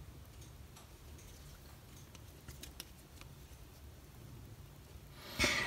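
Faint clicks and light handling sounds from an old Spyderco compression-lock folding knife as its blade and lock are worked by hand, a few sharper ticks in the middle. A louder rustle comes near the end.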